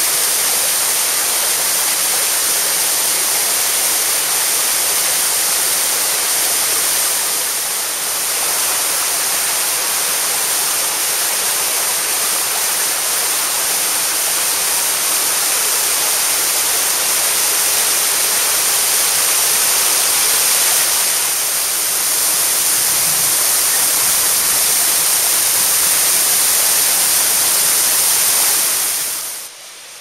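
Tall mountain waterfall pouring down a rock face, heard close up from its plunge pool: a loud, steady rushing hiss. Just before the end it drops abruptly to a much fainter rush.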